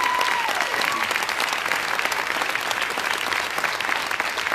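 Audience applauding: a dense, steady clatter of many hands clapping. A brief high steady tone sounds over it at the start and stops about half a second in.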